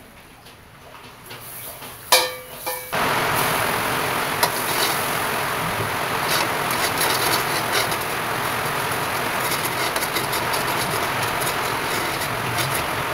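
Chopped garlic sizzling in hot melted margarine in a stainless steel wok, starting abruptly about three seconds in, with small clicks from a spatula stirring against the pan. Just before the sizzle, a short loud clatter with a ringing note.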